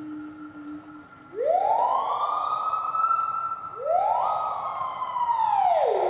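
A bird call played back slowed down, deep and drawn out: two long calls, each sliding up in pitch and then back down, the second starting about four seconds in.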